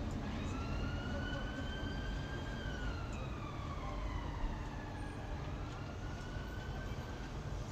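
An emergency-vehicle siren in a slow wail: its pitch rises gently, falls over a couple of seconds, then rises again. Beneath it runs a steady low rumble.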